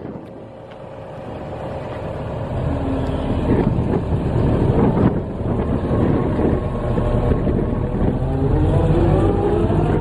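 The CNH diesel engine of a New Holland WE150B wheeled excavator running, growing louder over the first few seconds. Its pitch climbs steadily near the end as the revs rise.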